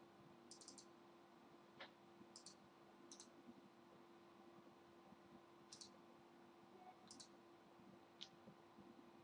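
Faint computer mouse button clicks, several in quick pairs or triples, spread irregularly over a faint steady low hum.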